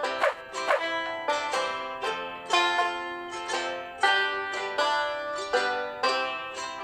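Background music: a light tune of plucked string notes, each note starting sharply and dying away.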